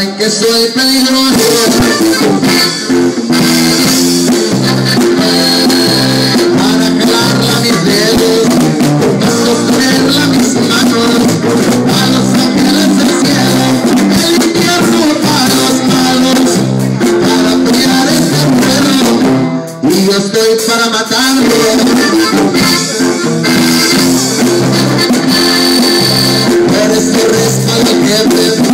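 Norteño band playing live: accordion over electric bass, guitar and drum kit, with a short break about twenty seconds in.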